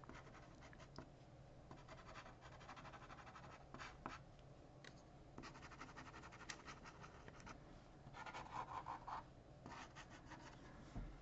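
Faint scratching of a 1.0 pigment liner pen drawing short strokes, with a louder run of strokes about eight to nine seconds in.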